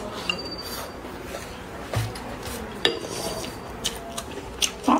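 Wooden chopsticks clicking and scraping against a ceramic rice bowl and plate during eating: about half a dozen sharp taps, with a louder knock near the end.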